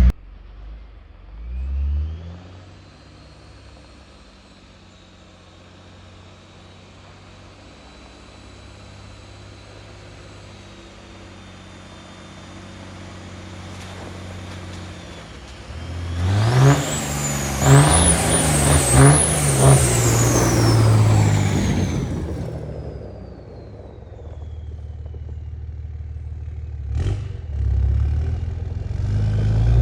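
Dodge pickup's Cummins turbo-diesel engine running steadily while driving, then accelerating in the middle with engine notes rising and falling and a high whine that climbs and then winds slowly down. A single sharp click near the end.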